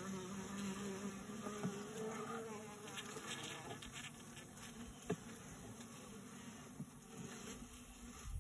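Honey bees buzzing steadily in an open nuc box, a wavering hum from a crowded colony, with a faint tap about five seconds in.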